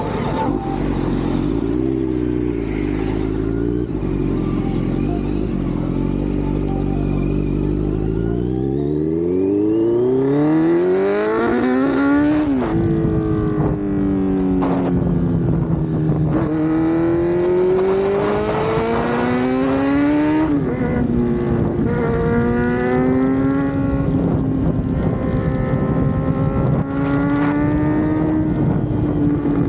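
Kawasaki Z900's inline-four engine running under way: low and fairly steady at first, then the pitch climbs and drops sharply at a gear change about twelve seconds in, falls and climbs again to a second upshift near twenty seconds, then holds fairly steady.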